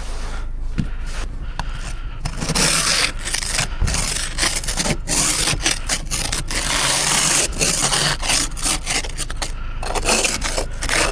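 Ice and snow being scraped off a car with a hand scraper in quick, repeated strokes. The ice is partly melted, so the scraping comes easily. The scraping grows louder and busier about two seconds in and eases off near the end.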